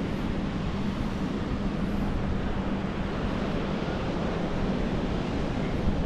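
Ocean surf and wind on the microphone, making a steady rushing noise, with a faint low hum through the first half.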